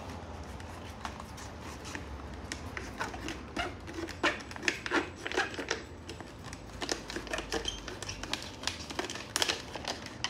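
Plastic water bottle being cut open by hand, the plastic crackling and snapping in quick irregular clicks.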